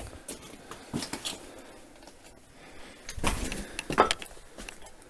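Scraping, knocking and rustling of people clambering up a steep rubble-strewn tunnel: clothing and gear brushing and footsteps on debris, with a louder scuffle about three to four seconds in.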